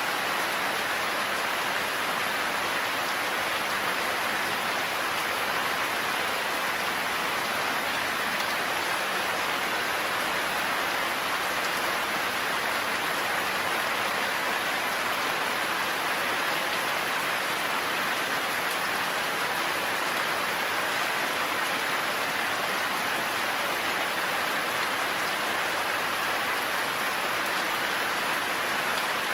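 Heavy rain falling steadily in a forest, an even unbroken hiss of rain with no thunder.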